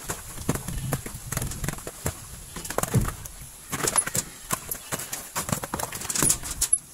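Whole coconuts knocking against one another and against the metal frame of a motorcycle sidecar as they are lifted out and tossed onto the ground: a quick, uneven run of knocks and clunks, with a heavier thud about three seconds in.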